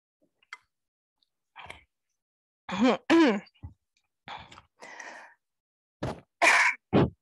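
A person clearing their throat and coughing several times close to the microphone, in short bursts with a brief voiced sound among them.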